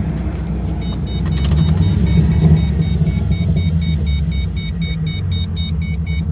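Car engine and road noise heard from inside the cabin while driving, a steady low rumble. From about a second in until near the end, a high electronic beep repeats rapidly, about four to five times a second.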